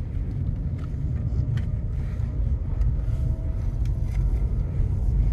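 Steady low road and tyre rumble inside the cabin of a 2022 Nissan Leaf S, a fully electric car, on the move, with no engine sound.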